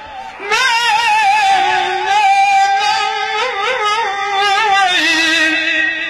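Tunisian salhi folk music: a high, ornamented melody that wavers and slides over long held notes, dipping briefly at the start and then continuing loud.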